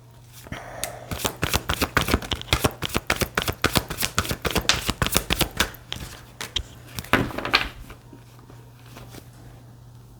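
A deck of tarot cards being shuffled: a quick, dense run of card-on-card flicks and slaps that stops about eight seconds in.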